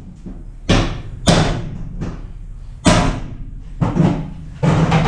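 Loud metal bangs and clangs echoing inside a stripped-out school bus body, about five blows, the last one longer, over a steady low hum.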